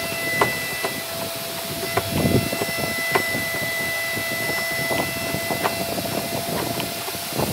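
A wood chisel, pushed by hand, paring shavings from a V-shaped notch in a wooden beam: scraping, crunching cuts with irregular sharp ticks as the edge bites into the wood. Behind it runs a steady hiss with faint steady tones.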